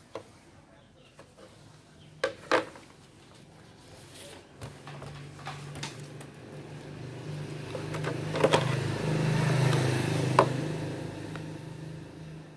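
A few sharp plastic clicks and knocks as the control circuit board is lifted out of the induction cooker's housing, then a passing vehicle's engine and road noise swelling up over several seconds and fading near the end, with two more sharp clicks on top.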